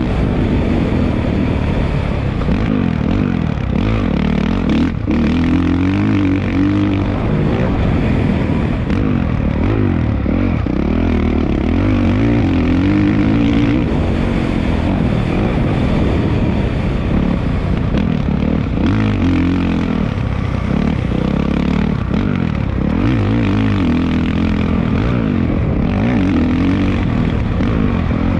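Motocross dirt bike engine being ridden, its pitch rising and falling again and again as the throttle opens and closes and the gears change.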